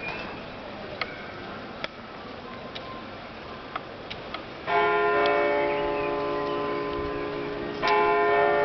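Large church bell in the Freiburg Minster tower, struck twice about three seconds apart, each stroke ringing on with a slowly wavering hum. Before the first stroke there is a light, regular ticking about once a second.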